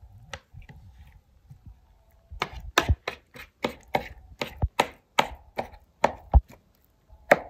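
Metal fork stabbing repeatedly into raw boneless chicken breast, its tines clicking sharply against the ceramic plate beneath. A few faint taps come first, then about a third of the way in a quick steady run of clicks, two or three a second.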